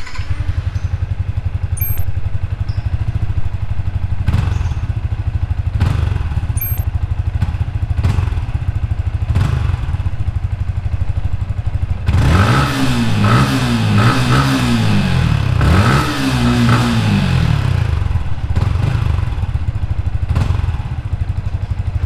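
Yamaha Sniper 155 R's liquid-cooled 155 cc single-cylinder four-stroke engine idling steadily, then revved in a few quick throttle blips from about twelve seconds in, the revs rising and falling each time, before it settles back to idle.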